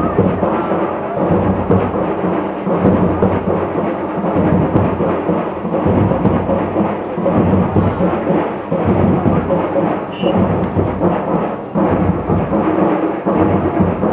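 Loud, continuous low din of a street procession crowd.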